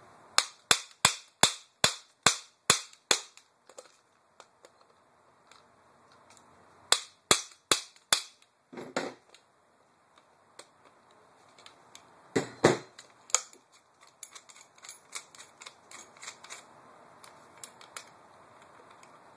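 Sharp metal clicks and knocks from an armorer's wrench working the castle nut loose on an airsoft rifle's buffer tube: a quick run of about nine clicks at the start, another cluster a few seconds later, two duller knocks, then lighter scattered clicks.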